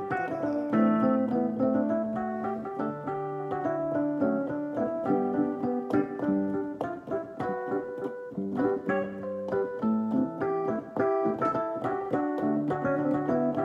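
Keyboard played with a piano sound: held chords over a low bass line with a melody on top, playing through a song idea.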